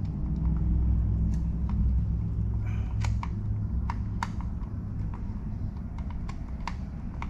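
Short irregular metal clicks and taps of a wrench working at the nut and bolt of a kart's front axle, over a steady low rumble.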